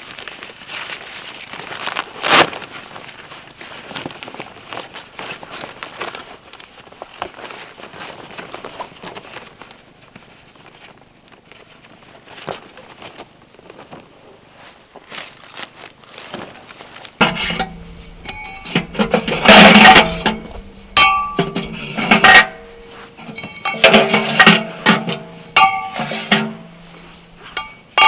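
Canvas tent fabric rustling as it is handled and the stove-jack flap is rolled up, with one sharp knock early in the first part. A little past halfway this gives way to metal stove-pipe sections clinking and clanking against each other, each strike ringing briefly, over a steady low hum.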